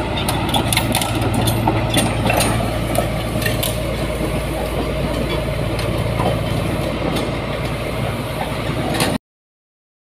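Komatsu D85ESS-2 bulldozer's diesel engine running steadily, with scattered clanks and rattles over it. It cuts off suddenly a second before the end.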